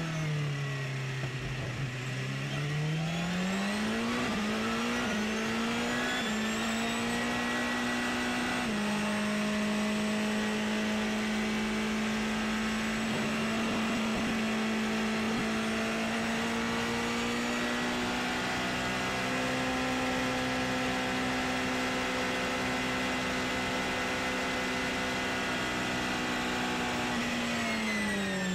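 Porsche 919 Hybrid's turbocharged 2.0-litre V4 heard onboard at racing speed. The note falls as the car slows in the first two seconds, climbs back through a few quick upshifts, holds a steady high note for most of the time, then falls again near the end as it slows for the next corner.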